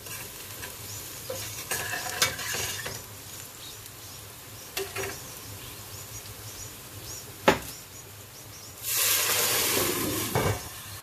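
Sliced onions sizzling in hot oil in a stainless steel pot, stirred with a slotted spoon that knocks against the pot a few times. About nine seconds in, a loud hiss for a second and a half as water hits the hot oil, then a glass lid is set on with a clack.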